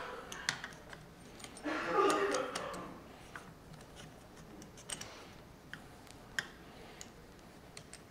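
Scattered light clicks and taps of gimbal cage tubes and clamp parts being handled and fitted together by hand, with a short louder patch of handling noise about two seconds in.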